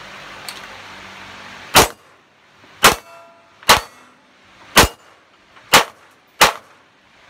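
Glock 17 9mm pistol firing 115-grain Tula ammunition: a string of six sharp shots about one a second, unevenly spaced, each with a short echo, and a seventh shot right at the end.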